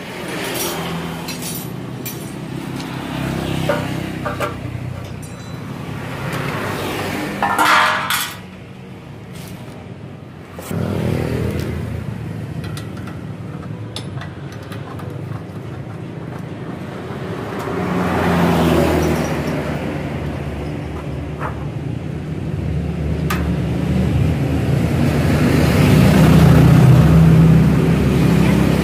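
Motor vehicles passing close by, their engine and tyre noise swelling and fading several times. A few sharp metal clinks come through, as from a wrench working on the saw's bolts.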